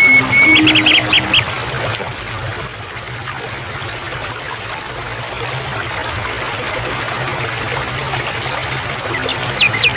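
Water trickling steadily, with a bird's quick series of short chirps during the first second or so and again near the end.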